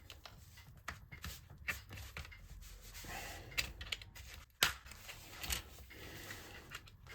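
Clipped-in plastic laptop screen cover being pulled and pried off, its clips creaking and clicking free in faint, irregular clicks and scrapes, with a sharper snap about four and a half seconds in.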